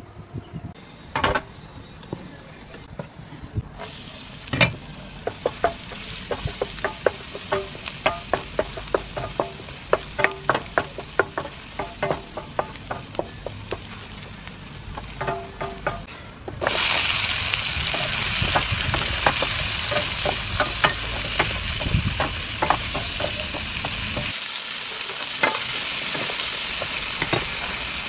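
Minced garlic sizzling in hot oil in a frying pan, with a wooden spatula knocking and scraping against the pan many times. About halfway through the sizzle jumps suddenly much louder as vegetables hit the hot pan, and they are stir-fried.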